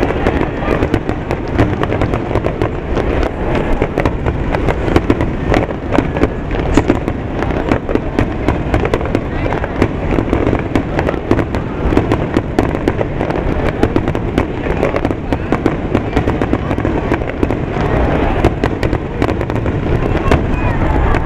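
A fireworks finale barrage: many shells bursting in quick succession, one bang close on the next with no pause.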